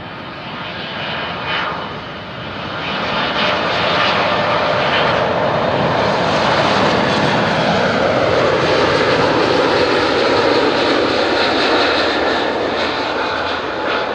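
Boeing 777-200ER airliner on final approach, its twin GE90 engines at approach thrust. The rush swells to a loud, steady peak as the jet passes close by, with a tone that sinks in pitch as it goes past, then eases off a little near the end as it flares just above the runway.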